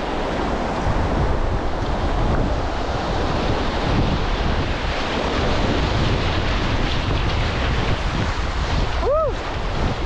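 Rushing whitewater of a river, a steady wash of noise with wind buffeting the microphone. About nine seconds in there is one short call that rises and falls in pitch.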